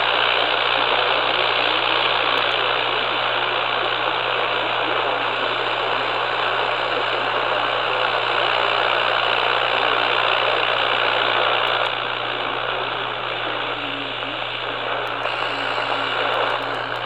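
AM radio static: a steady hiss over a low hum. It drops a little about twelve seconds in, and a few crackling clicks come near the end.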